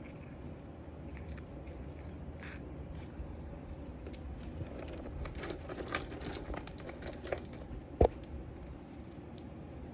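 A cat biting and gnawing a catnip stick: scattered small crunching clicks, busiest in the middle, with one sharp knock about eight seconds in.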